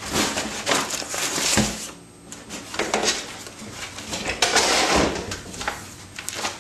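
Rubber mountain-bike tyre being worked off the rim by hand, its bead pulled up over the rim edge: rubbing and scraping in several bursts, with a dull thump about one and a half seconds in and another at about five seconds.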